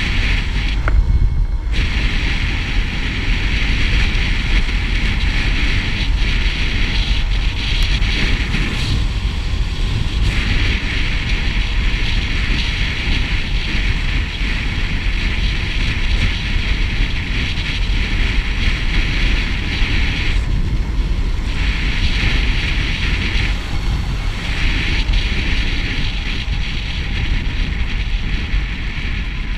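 Wind rushing over a helmet-mounted camera on a moving motorcycle, with the engine's low rumble underneath. The rushing briefly drops out a few times, about a second in, near nine seconds, and twice in the last third.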